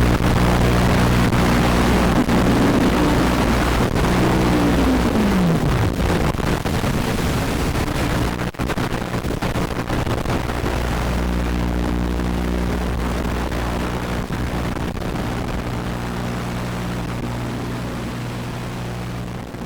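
FPV quadcopter's electric motors and propellers buzzing under heavy wind noise, with one tone falling sharply in pitch about five seconds in; the sound grows fainter toward the end.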